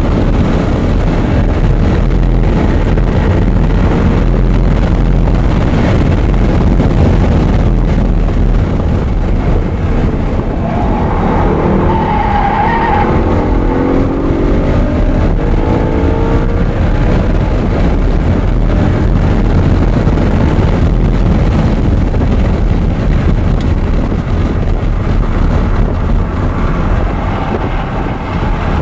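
Audi R8 running hard on a race track, with engine and wind noise. About halfway through, the engine pitch falls and then climbs again, as it does when braking and shifting through a corner. A brief tire squeal comes at the same time.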